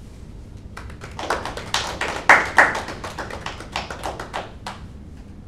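A small group of people clapping, starting about a second in and dying away after about four seconds.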